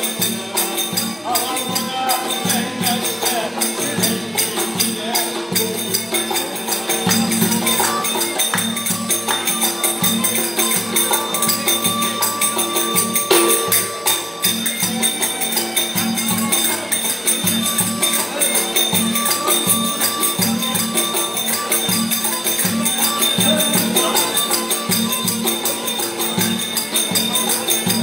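Live Turkish folk music: a kemençe bowed quickly over a steady beat from a davul bass drum.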